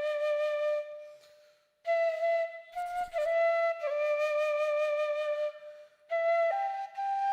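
Background music: a flute melody of long held notes, with two short breaks.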